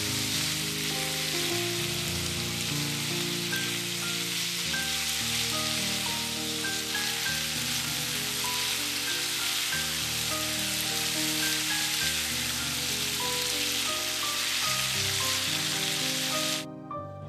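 Food sizzling in a hot frying pan, a steady hiss that cuts off suddenly near the end, with soft background music throughout.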